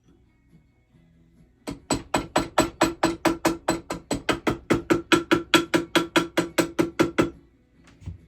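A hammer striking braided gold-and-silver wire in a quick, even run of about five blows a second, each with a short metallic ring, lasting about five seconds, then one lone tap near the end. The hammering is flattening and straightening the wire ellipse.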